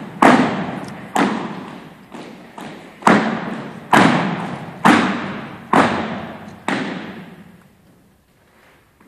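Loud, heavy thuds about once a second, each ringing out in a long echo through a large gymnasium, with two weaker ones in between; they stop about seven seconds in.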